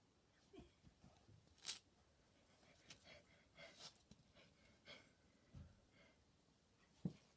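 Near silence, broken by faint scattered rustles and soft bumps, with one sharper knock near the end.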